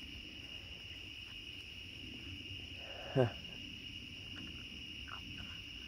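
Steady high-pitched chirring of night insects. About three seconds in there is one brief vocal sound that falls in pitch, and a few faint clicks come near the end.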